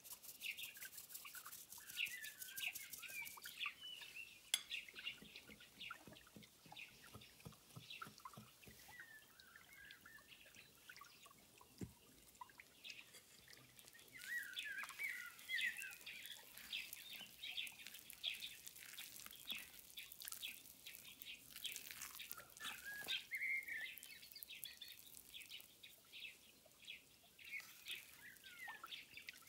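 Small birds chirping and twittering faintly in many short, quick calls, with scattered soft clicks and taps.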